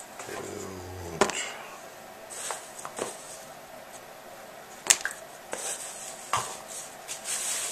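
Braided cord lanyards and keychains being handled and laid down on a tabletop: a few sharp clicks as they tap the surface, with soft rustling of cord in between.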